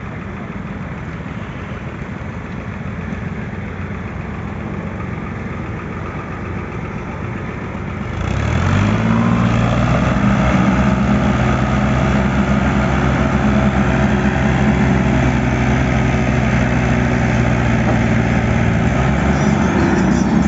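Vehicle engine idling, then revving up about eight seconds in and held at steady high revs.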